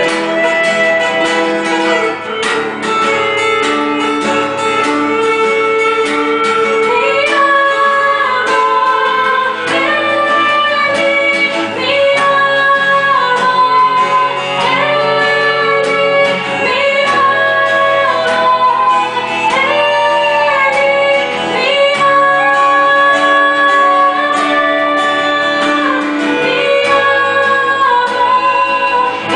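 Worship song played on guitar with a female voice singing long, held notes that slide from one pitch to the next.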